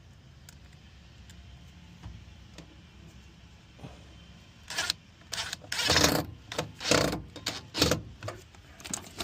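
Cordless drill driving a screw into the washer's panel in five or six short bursts, starting about halfway through. The screw is close to being stripped.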